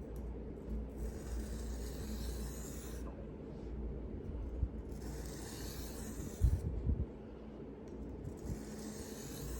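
Knife blade being drawn across a whetstone in hand sharpening: three long hissing strokes, with a few low knocks about two-thirds of the way through.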